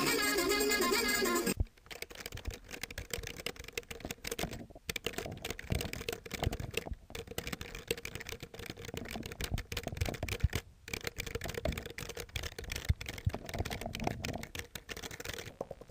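Typing on a computer keyboard: a long run of quick, irregular key clicks. Before it, a brief louder pitched sound cuts off suddenly about a second and a half in.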